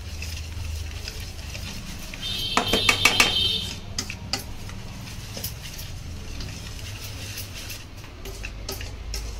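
Wire whisk stirring dry flour in a stainless steel bowl: repeated scraping and clinking of the wire against the steel. A louder run of strikes about two and a half seconds in sets the bowl ringing briefly.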